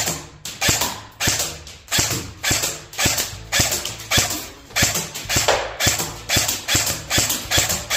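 A&K M14 airsoft electric rifle firing single shots on semi-automatic: a poppy, snappy shot a little more often than every half second, about fifteen in a row.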